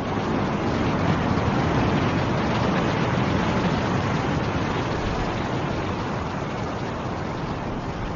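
Snowstorm wind blowing as a steady rush. It builds into a stronger gust about a second in, then slowly eases off.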